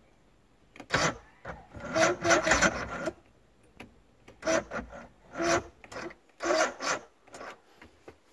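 Electric starter of a Johnson V4 two-stroke outboard cranking the engine in a series of short bursts, the longest about a second, without the engine catching.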